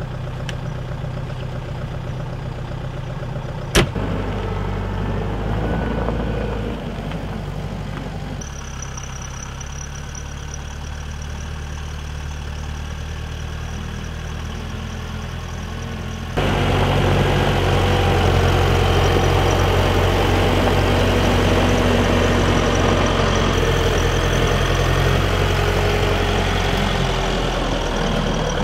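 Volvo compact wheel loader's diesel engine running steadily, with a single sharp click about four seconds in. The engine grows louder about halfway through, with a thin high whine over it.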